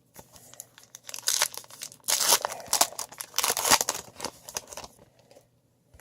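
Wrapper of a baseball card pack being torn open and crinkled by hand, in a run of irregular rustling tears that stops about a second before the end.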